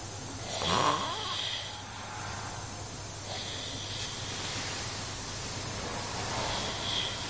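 A drunk man snoring heavily in his sleep while wearing a nose band. There is one loud snore about a second in, then softer hissing breaths twice more.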